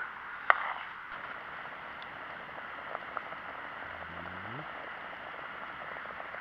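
Backpacking gas canister stove burning under a pot of stew with a steady hiss. A metal ladle clinks once against the pot about half a second in.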